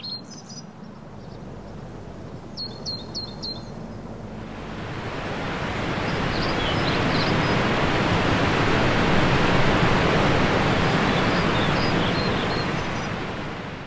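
Birds chirping, with a quick run of four chirps, then the steady rush of water pouring over a small stone dam swells in and holds, easing off slightly near the end.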